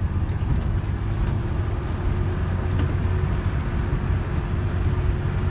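Motor vehicle driving: a steady low engine and road rumble with an even droning hum.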